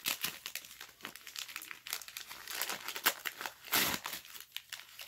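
Tissue paper crinkling and rustling as a wrapped item is unwrapped by hand, in a rapid run of sharp crackles with a louder crumple near the end.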